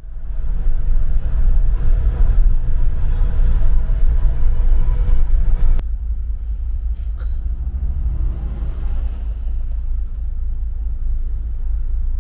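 Steady low rumble of a motor vehicle, with an abrupt change in tone about six seconds in.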